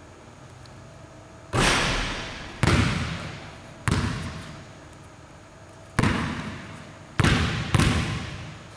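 A basketball bouncing on a hardwood gym floor: six sharp thuds at uneven intervals, each echoing through the large gym.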